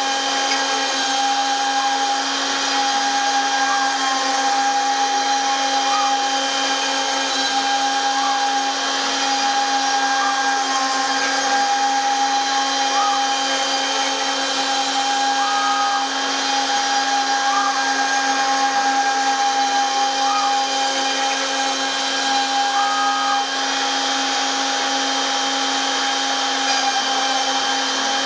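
Homebuilt CNC router's spindle running steadily at about 16,500 rpm while a 4 mm three-flute cutter mills a pocket in MDF. Short whines rise and fall every second or two over the steady machine sound as the machine moves through the cut.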